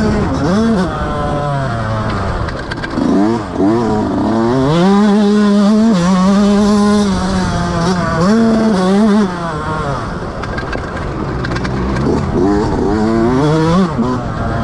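Motocross dirt bike engine revving hard on track, its pitch climbing and dropping as the rider opens and closes the throttle. It is held at high revs for about three seconds in the middle, then drops, followed by a string of short throttle blips near the end.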